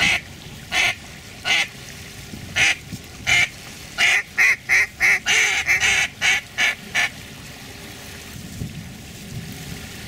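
Duck call blown in a string of quacks: single loud quacks about every 0.7 s, then a quick run of quacks that stops about 7 seconds in.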